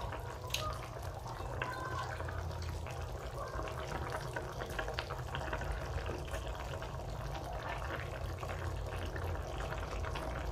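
Wooden spatula stirring vegetables through a wok of simmering coconut-milk sauce: wet sloshing and bubbling with scattered light clicks, over a low steady hum.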